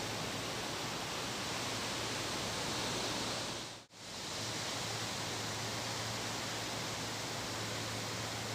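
Steady hiss with a low hum, which cuts out for an instant about four seconds in and then returns unchanged.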